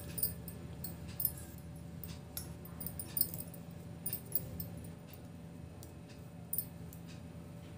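Knitting needles clicking lightly and irregularly as stitches are worked in wool, over a steady low hum.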